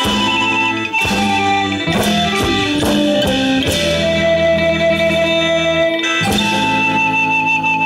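Live Isan folk band playing an instrumental passage: a plucked-string melody over held notes and a steady bass. It comes in suddenly, with a brief break about six seconds in.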